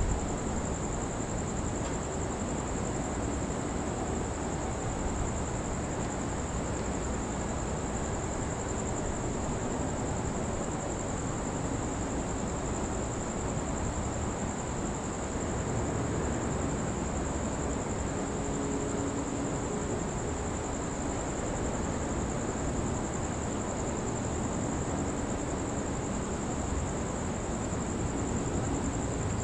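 Steady outdoor ambience under a thunderstorm: a constant low rumble of wind and distant city noise, with a thin, high, unbroken whine over it. No thunderclap is heard.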